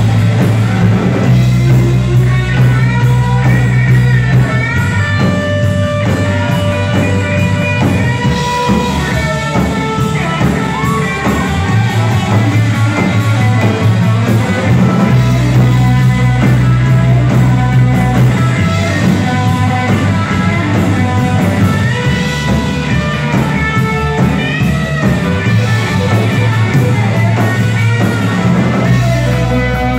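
A rock band playing live and loud, with electric guitars, bass guitar and a drum kit, recorded from within the audience.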